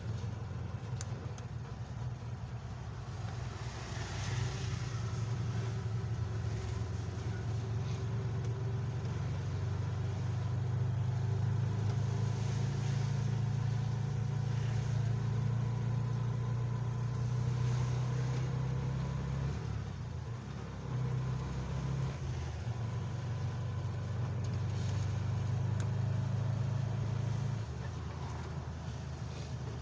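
Road vehicle's engine running steadily while driving on a rain-wet road, with a hiss of tyres and water above it. The engine sound dips briefly about two-thirds through and drops again near the end.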